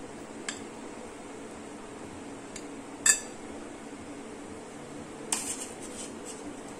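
Steel spoon clinking against a glass tumbler and a steel plate as banana slices are spooned into the glass: a few light clinks, one sharp louder clink about three seconds in, and a short cluster near the end, over a steady low background hum.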